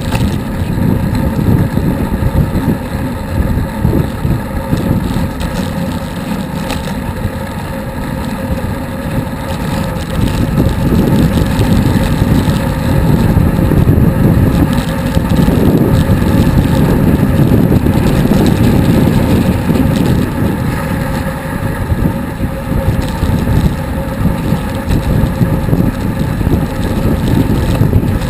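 Wind buffeting the microphone of an action camera on a bicycle moving at speed: a loud, continuous low rumble that grows louder about a third of the way in.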